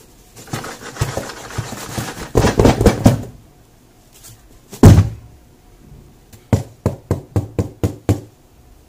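A taped cardboard box handled by hand: scraping and rubbing on the cardboard for about three seconds, one loud thump a little under halfway, then a quick run of about nine light knocks on the box near the end.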